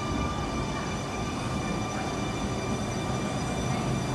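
Sydney Trains double-deck electric suburban train moving along the platform: a steady rumble of wheels on rail with a steady electric whine over it.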